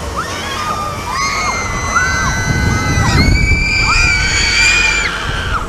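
Several riders on a KMG Tango spinning thrill ride screaming together, long high screams overlapping and rising and falling in pitch. Under them a low rumble that swells about halfway through and eases off again.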